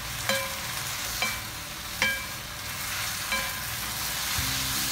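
Noodles and vegetables stir-frying in a nonstick wok: a steady sizzle, with the spatulas knocking against the pan four times, each knock ringing briefly.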